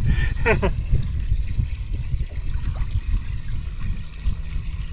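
Water trickling and pouring, over a steady low rumble.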